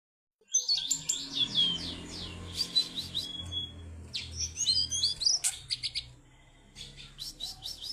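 A cingcoang (shortwing) singing a fast, varied warbling song of quick high notes, with a short pause near the end before it resumes, over a faint low hum.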